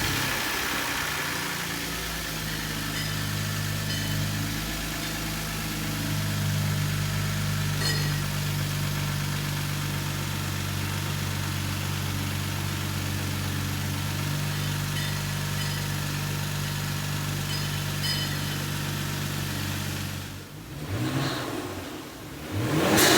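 2019 Kia Stinger GT2's 3.3-litre twin-turbo V6, freshly fitted with Injen dual cold air intakes, idling steadily right after start-up. Near the end it is revved twice in quick succession, the second rev louder.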